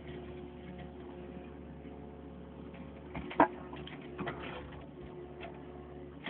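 Backhoe engine running steadily, with a sharp knock about three and a half seconds in and a lighter one soon after.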